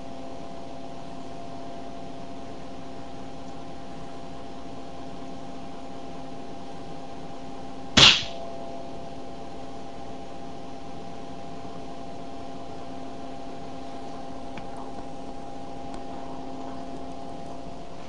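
A steady hum with several fixed tones, and about eight seconds in a single loud, sharp crack: a capacitor-bank discharge through a coil, whose pulsed magnetic force shapes the outer edge of a foil disc.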